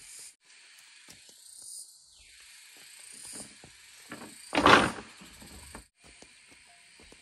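Bamboo-building work: scattered light knocks and handling noises over a steady high hiss, with one loud thump-like burst about four and a half seconds in.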